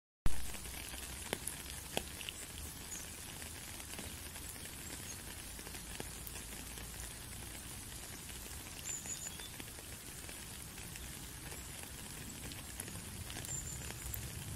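Steady rain falling on a puddle and wet gravel: an even hiss dotted with the ticks and plinks of single drops. The sound cuts out for a split second at the very start and comes back with one sharp tick.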